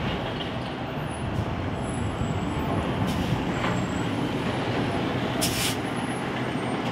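Charter coach bus's diesel engine running as the bus pulls slowly past, with a short hiss of air from its air brakes about five and a half seconds in.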